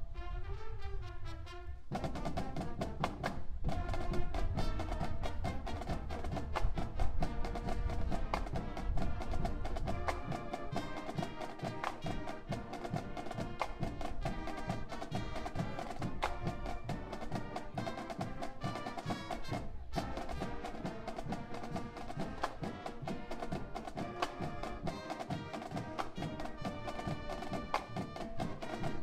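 High school marching band playing: brass and woodwinds over a drumline keeping a steady beat, with two very brief breaks, a few seconds in and about two-thirds through.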